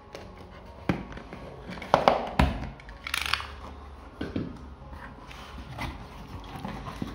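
A utility knife slitting packing tape on a cardboard shipping box, then the cardboard flaps being pulled open and folded back: a run of sharp knocks and scraping rustles, loudest about two seconds in.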